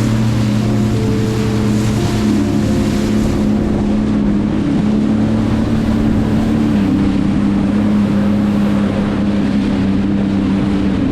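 Sea-Doo GTR 215 jet ski's supercharged three-cylinder Rotax engine running at a steady cruising speed while under way, its pitch dipping slightly about two-thirds through. Wind and water noise rush over it.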